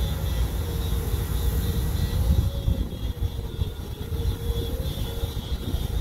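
Pressure washer running at a water tower: a loud steady machine drone with a heavy, uneven low rumble, and a faint tone that wavers slightly in pitch and swells and fades every couple of seconds.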